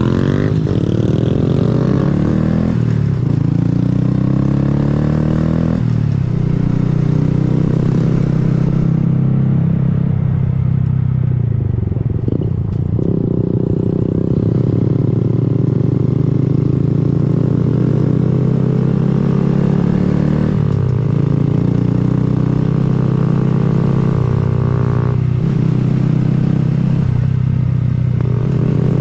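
Honda Grom's small single-cylinder engine riding along, its pitch climbing twice in the first several seconds as it accelerates through the gears, easing off briefly around the middle, then holding a steady cruise with small changes near the end.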